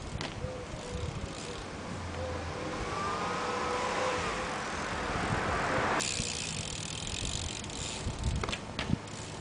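A car passing close by: tyre and engine noise swells over a few seconds to its loudest about six seconds in, then eases off. A few sharp clicks near the end.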